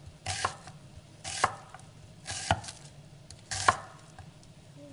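Chef's knife slicing a raw onion into thin rings on a wooden cutting board: four unhurried cuts about a second apart, each a short crunch through the onion ending in a knock of the blade on the board.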